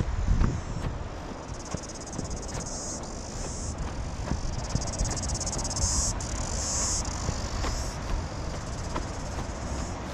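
Insects chirring in high-pitched stretches that start and stop, loudest about six to seven seconds in, over a steady rumble of wind on the microphone and faint regular footfalls on the trail.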